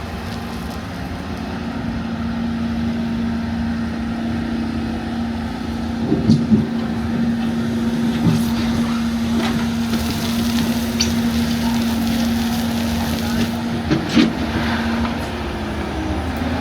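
LiuGong 942F excavator's diesel engine running at a steady pitch, with a few short knocks at about six seconds, eight seconds and fourteen seconds.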